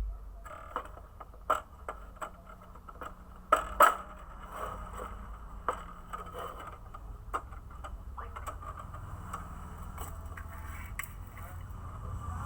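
Scattered clicks and knocks of a toy birdcage and its parts being handled, the loudest pair about three and a half seconds in, over a faint low hum.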